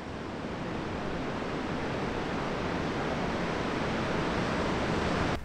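Ocean surf washing onto a beach: a steady rush of waves that fades in and builds slowly, then cuts off abruptly near the end.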